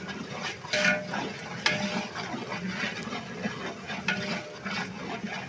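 Sliced onions frying in hot oil in a large metal pot, sizzling steadily while a long metal ladle stirs them. The ladle scrapes and knocks against the pot several times.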